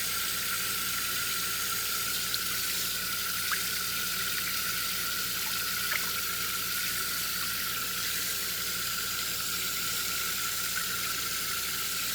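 Cold water running steadily from a hose into a tub of warm bathwater, a constant hiss of spray and splashing.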